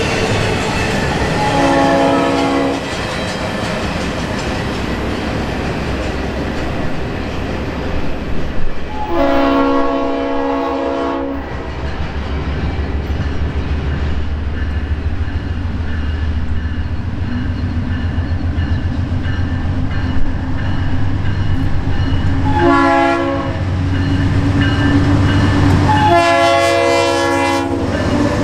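Leslie RS-3L three-chime horn on a Norfolk Southern GE Dash 9-44CW running light, sounding the grade-crossing signal: a long blast about two seconds in, another around ten seconds, then a short one and a long one near the end. Under it is the steady rumble and wheel clatter of the trains passing and approaching.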